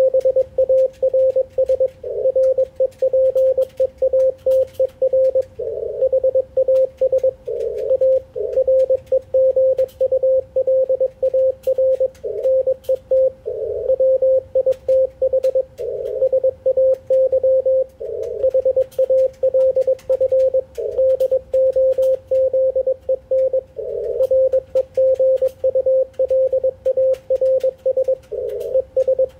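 Morse code (CW) from an Icom IC-746PRO transceiver tuned to the 80-metre band: a steady tone of about 550 Hz keyed rapidly in dots and dashes. Brief patches of band noise through the narrow CW filter fill some of the gaps between characters.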